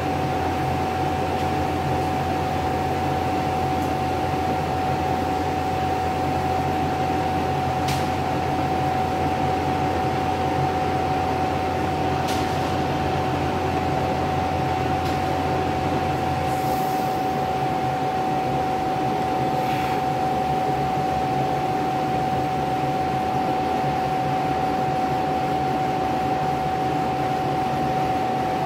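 Laser engraving machine running: a steady fan-like noise with a constant high hum. A lower hum cuts off about halfway through, and there are a few faint clicks.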